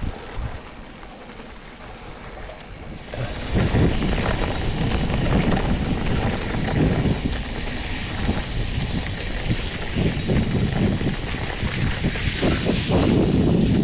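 Wind rushing over an action camera's microphone while a mountain bike rides fast down a dirt forest trail, with tyre noise and the rattle of the bike over bumps. It is fairly quiet for the first three seconds, then gets loud and jolting once the riding picks up.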